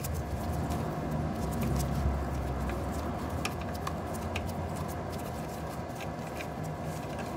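Scattered light metallic clicks and ticks of a hex key turning out the mounting screws of an electric scooter's rear brake caliper.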